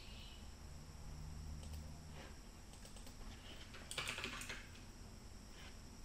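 Typing on a computer keyboard: scattered single keystrokes with a quick run of clicks about four seconds in.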